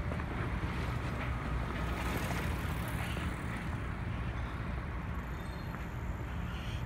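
Steady rumble of road traffic on a busy city street, cars passing without any single vehicle standing out.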